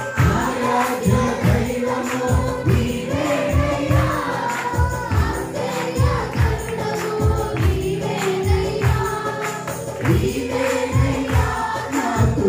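Worship song with a group singing, a tambourine and a steady drum beat.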